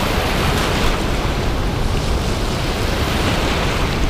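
Ocean surf washing up the beach, its hiss swelling twice as waves run in, with wind buffeting the microphone.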